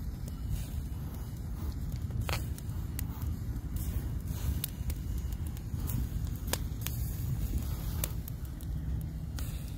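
Wood fire crackling in a fire pit, a handful of sharp pops spaced irregularly, over a steady low rumble.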